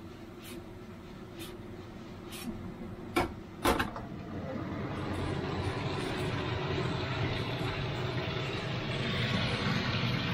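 Spaghetti with peppers and chicken frying in a nonstick pan on a gas stove: a few sharp clicks and knocks of the pan and utensil in the first four seconds, then a steady sizzling hiss that grows louder about five seconds in.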